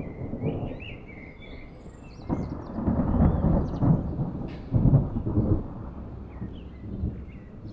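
Thunder rolling: a deep rumble sets in about two seconds in, swells through several loud peaks, then fades away.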